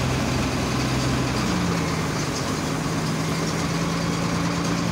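A small wooden passenger boat's engine running steadily under way; about a second and a half in its pitch steps up as the engine speeds up, then it holds at the higher speed.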